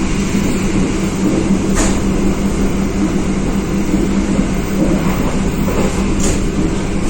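Passenger train carriage running, heard from inside: a steady rumble with a constant low hum, and a couple of brief clicks, one about two seconds in and one near the end.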